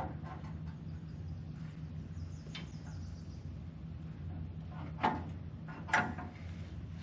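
John Deere 420 tractor's two-cylinder engine idling steadily, with two sharp metal clanks about five and six seconds in.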